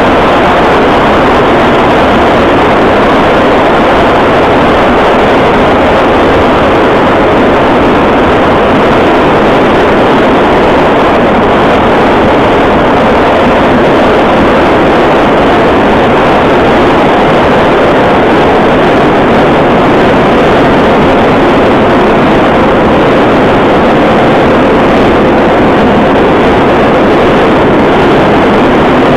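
Interior running noise of a Moscow Metro 81-717.5M 'Nomernoy' car travelling through a tunnel: a loud, steady noise of wheels on rails and running gear. It neither rises nor falls.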